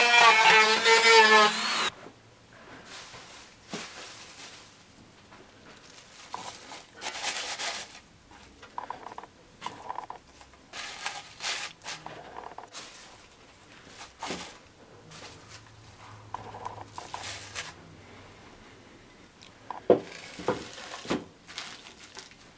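Handheld rotary tool with a sanding drum running on the wooden box, its whine wavering under load, stopping about two seconds in. Then soft rustling of loose wood shavings being handled in the box, and a few sharp knocks near the end as a glass bottle is set down into it.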